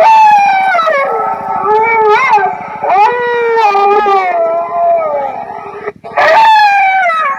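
Four-button electronic ghost-sound horn playing its recorded dog howl through a horn loudspeaker: loud, long, wavering howls that start high and slide slowly down, repeating about every three seconds.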